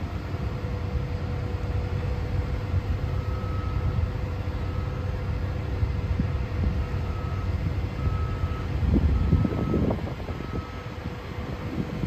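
Construction machinery running with a low rumble and a steady hum, while a motion warning alarm beeps about once a second from about three seconds in until near the end.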